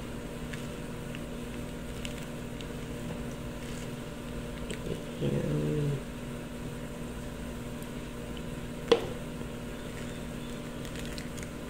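Metal spoon scooping mango into a clear plastic blender cup, with one sharp tap of the spoon against the cup about nine seconds in over a steady low room hum. About five seconds in there is a brief low humming moan, under a second long.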